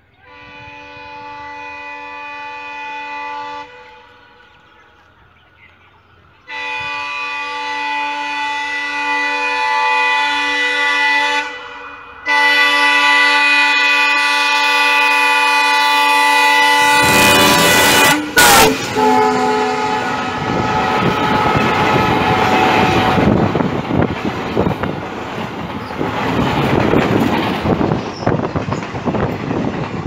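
WDM3A diesel locomotive sounding its air horn in three long blasts as it approaches, each louder than the last. About seventeen seconds in, the train reaches the microphone: the horn's pitch drops as the locomotive passes, and the loud rumble and clatter of the passing passenger coaches follows.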